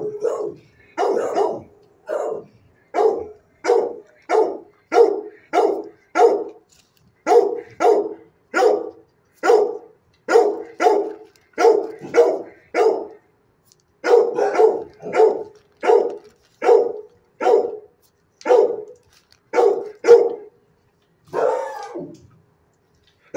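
A pit-bull-type dog barking over and over at a steady pace, about two barks a second, with short breaks. There is one longer bark near the end.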